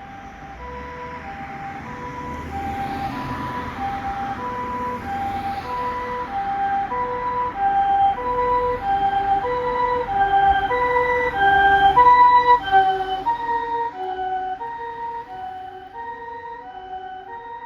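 Japanese ambulance harmonic siren sounding its alternating two-tone 'pee-poh' call. Each tone is a chord of several pitches, and the pair repeats a little more than once a second over engine and tyre noise. It grows louder as the ambulance approaches and is loudest about twelve seconds in, then drops in pitch and fades as it passes.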